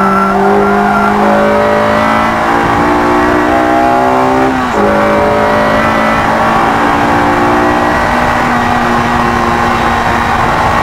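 Honda S2000's four-cylinder engine accelerating hard at high revs, its pitch climbing in third gear. A quick upshift to fourth a little under five seconds in briefly breaks the sound and drops the pitch, and then it climbs slowly again. Heard from inside the car over a steady rush of road and wind noise.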